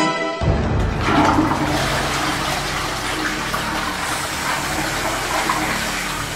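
Music cuts off about half a second in and a toilet flushes: a rush of water that gurgles and drains, slowly fading away.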